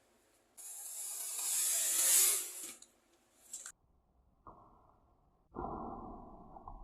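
A kitchen knife's blade drawn across a sharpening stone: one long scraping hiss that grows louder and stops nearly three seconds in, then a brief scrape. Later come fainter, muffled scrapes.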